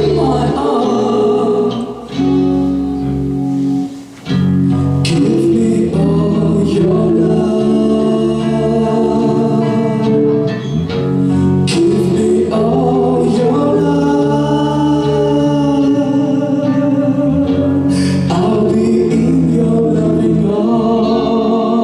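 A hard-rock band playing live: electric guitars, bass and drums with a singing voice over sustained chords. There is a short break about four seconds in before the band comes back in.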